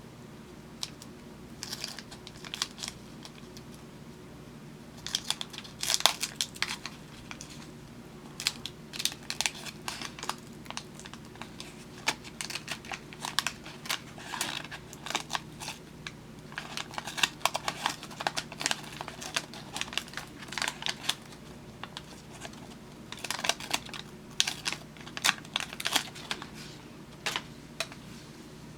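Waxed-paper wrappers of 1975 Topps wax packs crinkling and tearing as they are opened by hand, in about six spells of crackling with short pauses between them.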